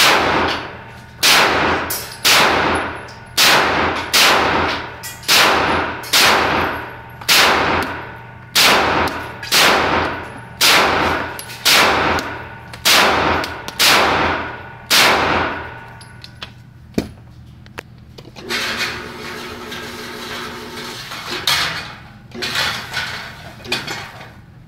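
Walther PPQ M2 9mm pistol with a 5-inch barrel fired one-handed, about fifteen shots at roughly one a second, each with a ringing echo off the range walls. After a short pause an electric target carrier runs, stops briefly and runs again, bringing the paper target back.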